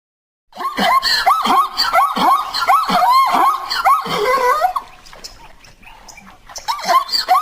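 Quagga call, a zebra-type bark: a fast run of high, yelping barks, about three a second, that falls quiet about five seconds in and starts again near the end.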